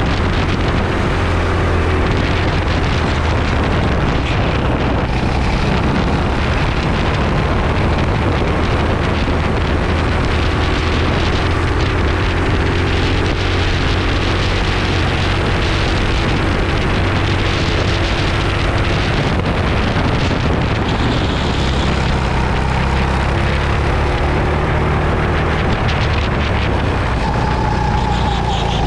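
Racing kart engine running hard on track, its pitch rising and falling with the throttle through corners and straights, with wind rushing over the onboard microphone.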